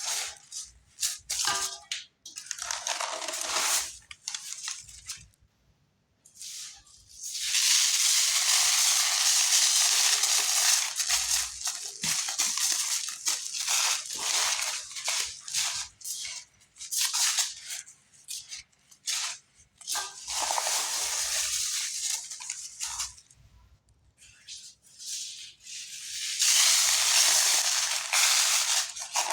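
Chunks of cement being crumbled and crushed: a dry crunching and crackling that comes in bursts of a few seconds with short pauses between them.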